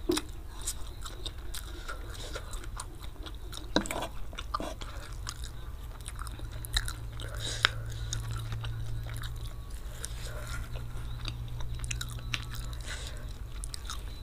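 Close-miked chewing of a mouthful of spicy fried flat rice noodles (kwetiau goreng), with many short sharp clicks scattered throughout, over a faint steady low hum.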